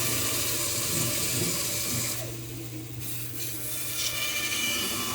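Bandsaw running and cutting the corners off a green-wood bowl blank, the cutting noise dropping out briefly about two seconds in over the saw's steady hum.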